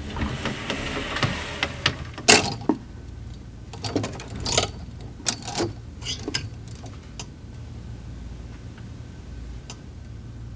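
A run of short rustles and knocks from someone moving about and handling things, then a steady low room hum.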